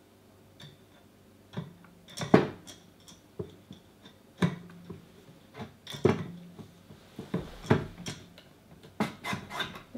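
Metal parts of a 3D printer's gantry and extruder carriage being handled and fitted: a string of light metallic clicks and knocks, the loudest about two seconds in, some with a short ring after them.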